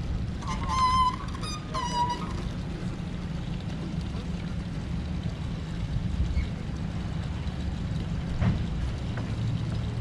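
Steady low rumble of idling boat engines, with two short high-pitched calls about half a second and two seconds in.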